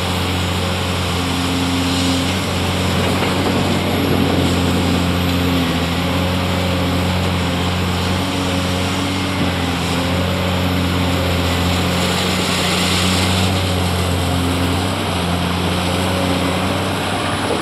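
Caterpillar 390D LME excavator's diesel engine working under load as the machine digs and swings a full bucket. It is a steady, loud drone whose pitch steps up and down slightly with the load, over a rushing hiss that swells about two-thirds of the way through.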